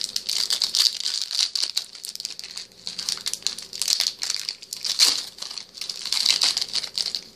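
A trading card booster pack wrapper crinkling as it is handled and opened, a dense run of crackles with louder bursts in the middle.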